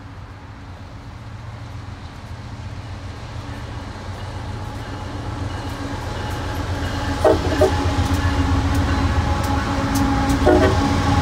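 A lash-up of Union Pacific diesel-electric locomotives approaching and drawing level, their engines a steady low drone that grows louder throughout. Brief sharp sounds cut in about seven seconds in and again about ten and a half seconds in.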